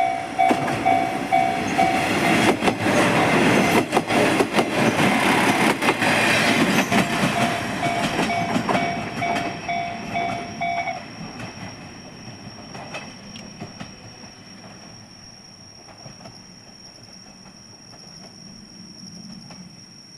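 A KiHa 47 diesel railcar passing over a level crossing, its wheels clacking over the rail joints, while the crossing's warning bell rings in a rapid repeating pattern. The bell stops about eleven seconds in, and the train's sound then fades away.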